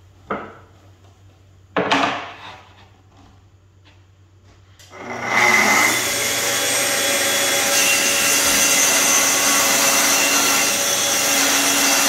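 An aluminium guide rail set down on an MDF sheet with a knock and then a clatter. About five seconds in, a Festool plunge track saw starts up and runs steadily, sawing into the MDF along the rail.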